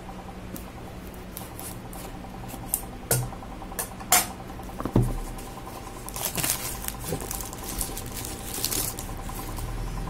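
A cardboard smartphone box being handled and unsealed: a run of sharp clicks and taps in the first half, then from about six seconds a rustling scrape of cardboard and seal labels.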